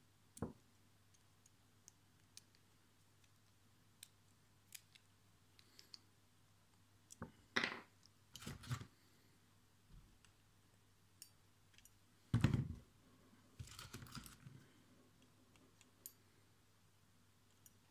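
Faint clicks, taps and short snips of small metal hand tools working on a vape atomizer's build deck as a coil is fitted and its wire leads are trimmed, with a few louder handling noises about halfway through and again a little later.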